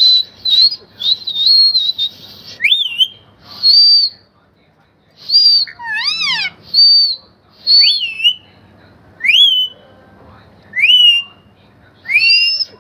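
Parrot whistling a series of short, loud whistles, roughly one a second: some are held high notes and others sweep up and fall back. About six seconds in comes a more complex warbling call.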